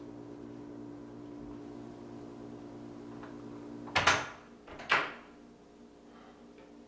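Two loud bangs on a door about a second apart, like heavy pounding knocks, each ringing out briefly over a steady low hum; the hum drops away after the second bang.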